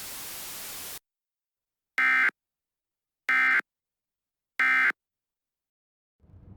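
Emergency Alert System end-of-message signal: three identical short bursts of warbling digital data tones (SAME 'NNNN' code), each about a third of a second long and about 1.3 seconds apart, with dead silence between them. A second of steady hiss comes before the first burst.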